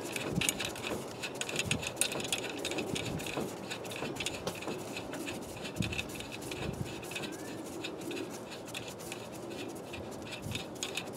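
Nuts being worked down onto new fine-thread U-bolts over a truck's leaf springs: a dense, irregular run of small metallic clicks and scrapes, with a few soft knocks.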